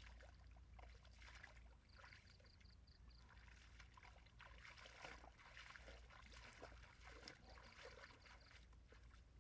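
Faint splashing and sloshing of footsteps wading through shallow muddy water, in irregular strokes over a low steady hum. A faint high chirping repeats briefly twice.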